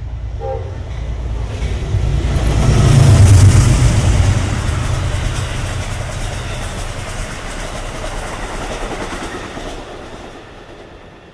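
Amtrak GE Genesis diesel locomotive passing at speed, its engine loudest about three seconds in, followed by the stainless-steel Amfleet coaches rolling by with wheel clicks over the rail joints, fading toward the end as the train recedes.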